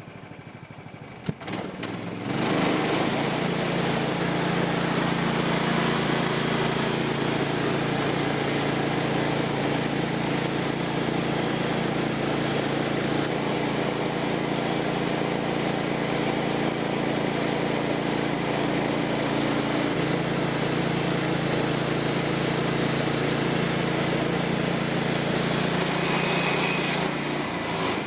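A click, then the gas engine of a Woodland Mills portable bandsaw sawmill speeds up about two seconds in and runs loud and steady while the band blade cuts along a red oak post. It drops back near the end as the pass finishes.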